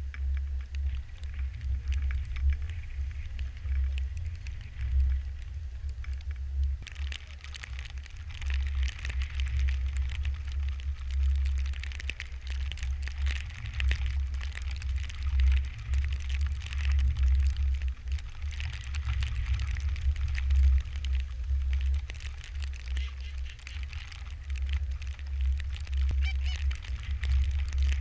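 Canada geese honking as a flock comes in, the calls thickening from about seven seconds in, over a constant low rumble of wind on the microphone.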